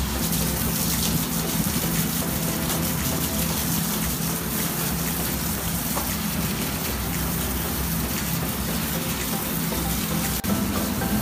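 Water spraying steadily from a handheld shower head onto a beagle puppy and a tiled floor: a continuous rushing splash.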